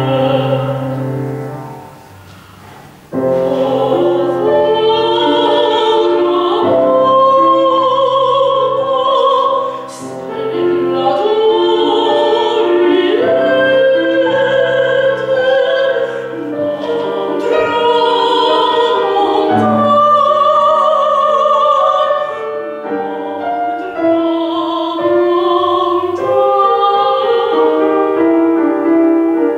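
Mezzo-soprano singing an opera aria with grand piano accompaniment, her voice carrying a wide vibrato. The music drops away briefly about two seconds in, then voice and piano come back in together.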